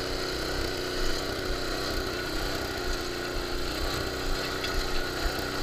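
Tecumseh 5-horsepower single-cylinder engine of a snowblower converted into a power wheelbarrow, running steadily while it drives the loaded barrow, about 250 pounds of cement, across grass.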